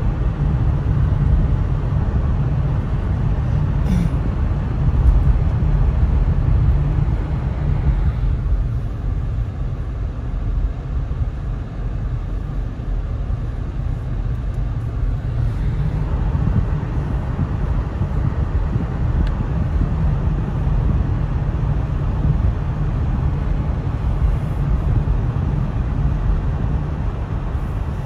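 Steady road noise inside a moving car: a low rumble from the engine and drivetrain with the hiss of tyres on wet pavement, and a single click about four seconds in.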